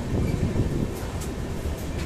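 Passenger train running alongside a station platform, heard from its open doorway: a steady low rumble of wheels on rail with a few faint clicks.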